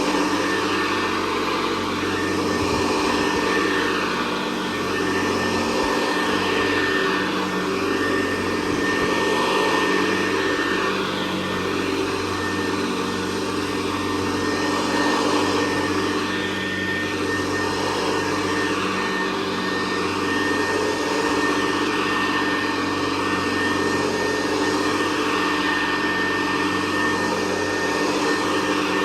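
Hoover Convertible Model 68 upright, a 1961 direct-air vacuum with a triple-action agitator, running steadily while cleaning carpet. It has a constant high whine, and its level swells and eases slightly as it is pushed back and forth.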